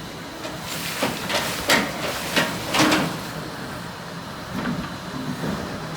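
Excavator engine running steadily. A cluster of loud, harsh noises from the working machine comes about one to three seconds in, and a few weaker ones near the end.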